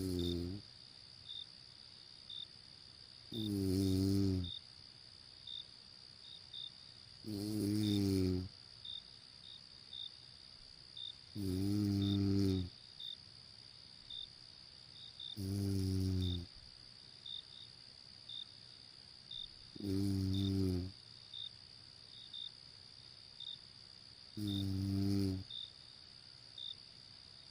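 A person snoring in slow, regular breaths, one deep snore about every four seconds. Beneath it runs a steady high insect trill with faint chirps, like crickets on a summer night.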